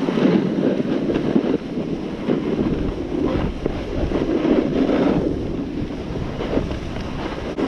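Wind buffeting the microphone while descending a snowy ski trail at speed, over the hiss and scrape of sliding on snow, surging unevenly every second or so.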